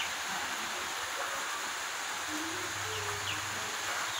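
Steady hiss of rain falling on trees and foliage, with a few short, high bird chirps over it.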